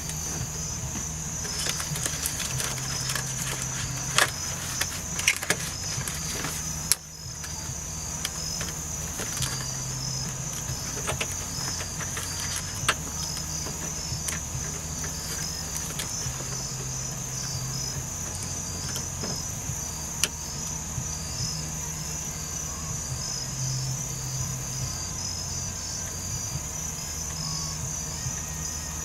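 Crickets chirping steadily in a high pulsing trill, over a low hum, with a few sharp clicks and knocks, mostly in the first several seconds.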